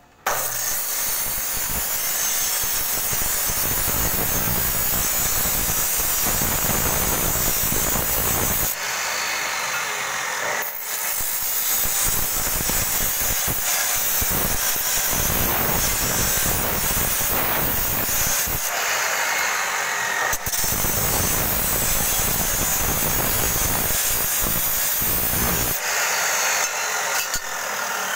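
Electric abrasive chop saw starting up sharply and grinding through steel tubing, the cut-off wheel throwing sparks as it bites into the metal. The loud grinding eases briefly about ten seconds in, again about twenty seconds in, and near the end.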